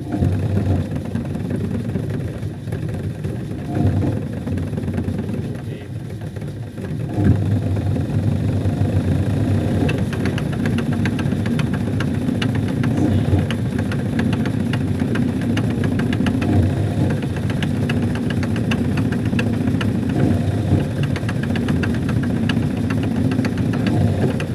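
Hitachi SF-160KJS top-loading washing machine's drive (motor, belt and clutch unit) running: a steady hum that grows louder about seven seconds in, then a fast, even rattle of ticks over it. The machine is being checked for a very loud noise at the end of the spin cycle.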